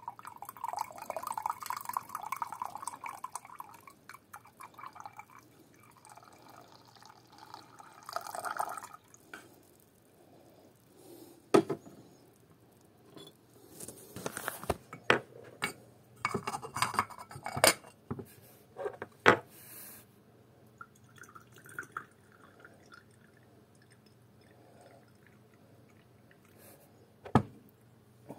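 Tea poured in a thin stream from a small clay teapot into a clay vessel, splashing for about four seconds, with a second pour about six seconds in. This is followed by a scattered series of sharp clinks and knocks.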